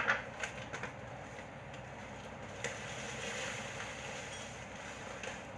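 Crushed Oreo biscuits being tipped from a plastic zip-lock bag into a bowl: a sharp click at the start, a few light clicks and rustles, then a steady faint hiss.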